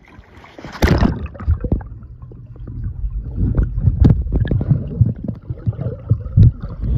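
Pool water splashing about a second in, then muffled underwater sloshing and knocks from a swimmer moving close by, heard with the camera held under the surface of a swimming pool.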